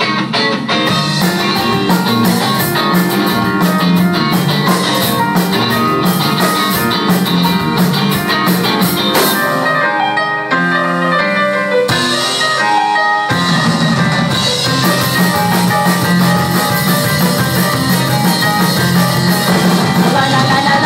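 Live rock band playing, with drum kit, electric guitar and keyboard. About ten seconds in the drums drop out for a few seconds, leaving a sparser run of notes, then the full band comes back in.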